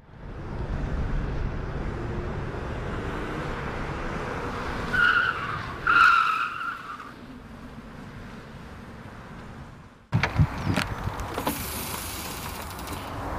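A car's engine running, with tyres squealing twice in quick succession about five and six seconds in as it brakes hard. After a sudden cut near the end come a few short knocks and clicks.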